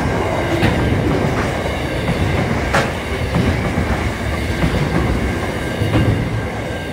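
Container wagons of a freight train rolling past close by: a steady rumble of steel wheels on rail, broken by irregular sharp clacks as the wheels cross rail joints.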